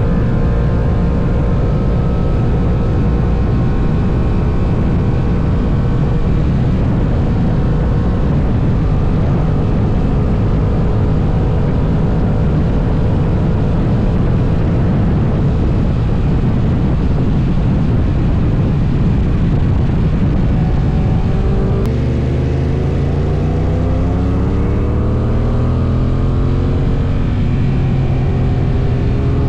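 Heavy wind rush on the microphone at highway speed on a Honda NT1100, with its parallel-twin engine running underneath. About 22 seconds in the wind noise eases and the engine's note climbs in pitch twice.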